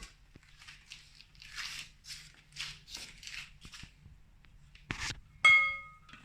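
Kitchen handling: a run of short scraping strokes, about three a second. Then a click and a single metal clank that rings briefly, the loudest sound.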